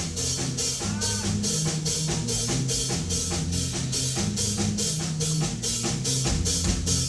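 Band music without vocals: a drum kit keeps a steady beat of about three hits a second under a moving bass line.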